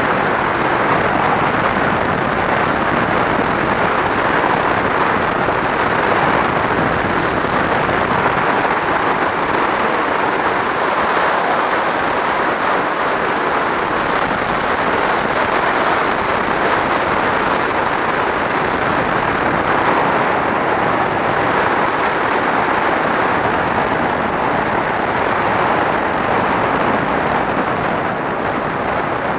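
Steady rush of wind over a helmet-mounted camera on a motorcycle moving at road speed, a loud even hiss that covers any engine sound.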